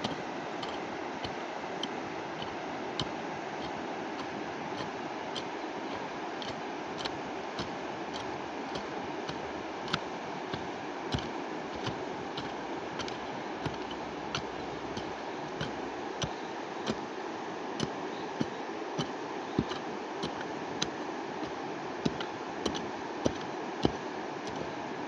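Steady rushing of a mountain river or stream, with a sharp light tick about every two-thirds of a second from an unidentified source.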